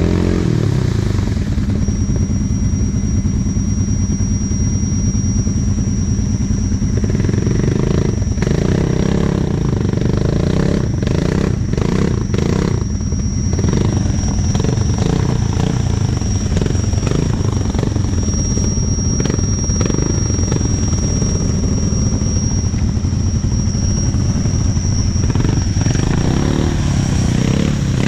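Kawasaki KVF 750 Brute Force ATV's V-twin engine running at a steady throttle while wading through a muddy, water-filled track, with a thin high steady whine over it. A run of knocks and splashes comes through the middle.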